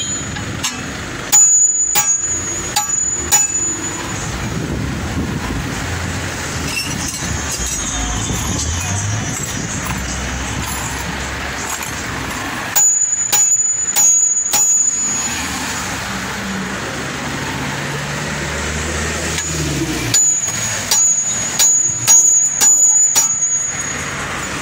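Hammer blows on the steel hub and suspension parts of a vehicle's front wheel, in three bursts of several sharp, ringing strikes about ten and seven seconds apart, over a steady background rumble.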